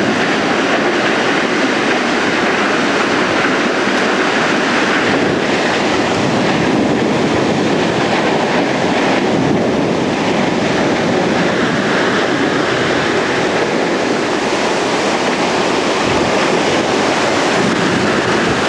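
Tornado winds directly overhead: a loud, steady rush of wind with no letup, carrying debris.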